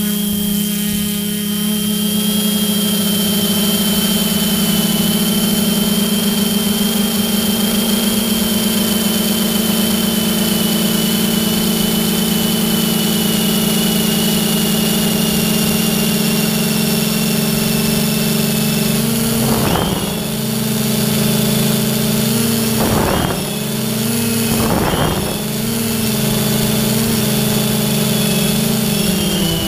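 Motor and propeller of an FPV aircraft, heard from on board, running steadily with a high whine. It briefly throttles down and back up three times about two-thirds of the way in.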